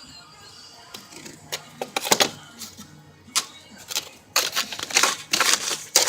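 Masonry work: a trowel and stones clacking and scraping against mortar, scattered sharp knocks at first, then louder, longer scrapes over the last couple of seconds.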